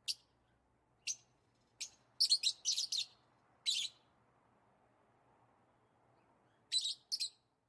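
Lovebirds giving short, high-pitched chirps in irregular bursts. There is a quick cluster about two seconds in, then a pause of a few seconds before two more chirps near the end.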